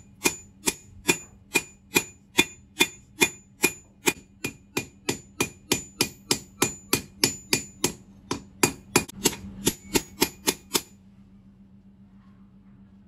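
Hand hammer forging red-hot bearing steel on an anvil: a steady run of ringing blows, about two to three a second, that stops about eleven seconds in.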